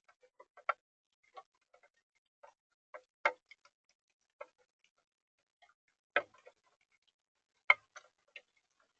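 Irregular light ticks and taps against a smart bird-feeder camera, about a dozen, four of them sharper and louder.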